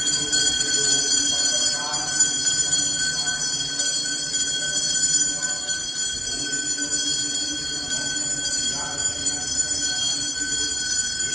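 Puja bell ringing on and on with high metallic tones, under a priest's voice intoning the ritual in short phrases.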